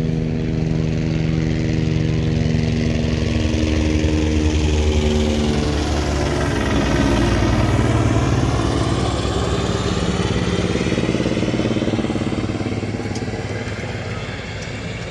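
A motor vehicle's engine running steadily, then a vehicle passing close by, its sound swelling a few seconds in and slowly fading toward the end.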